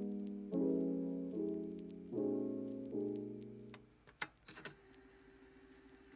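Background music: soft piano chords struck about once a second, each dying away, then a quieter stretch with a few sharp clicks and a held note in the second half.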